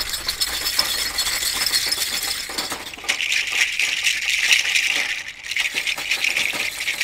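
Hanging dried-gourd shakers being shaken by hand: a dense, continuous rattle that turns brighter about three seconds in.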